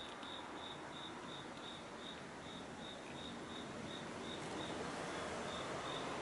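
A cricket chirping steadily, about three short high chirps a second, over faint steady background noise.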